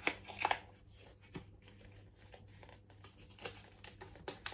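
Light rustling with a few sharp clicks and taps of cardboard and paper packaging being handled around a boxed eyeshadow palette.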